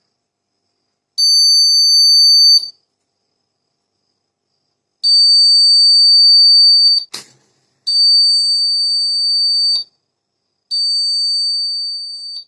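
Homemade fire alarm's buzzer sounding a high, steady tone in four separate bursts of about two seconds each, set off when its phototransistor sensor is exposed to fire during a test. A sharp click falls between the second and third bursts.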